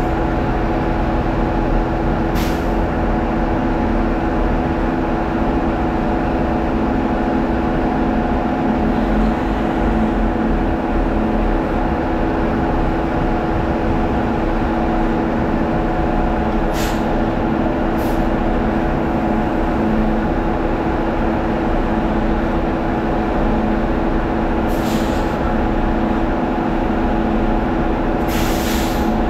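Heavy diesel truck engines running steadily, with several short hisses of released air: about two seconds in, twice around the middle, and a longer one near the end.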